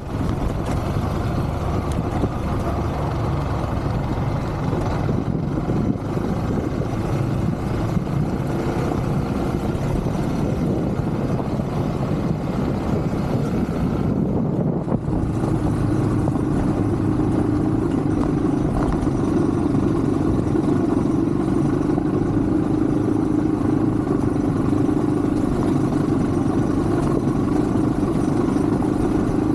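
Yamaha WR155 enduro motorcycle's single-cylinder engine running while riding, steady throughout; about halfway through the engine note settles into a stronger, steady drone.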